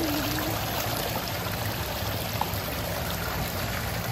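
Steady splashing and running water in a koi pond, the surface churned by a crowd of feeding koi.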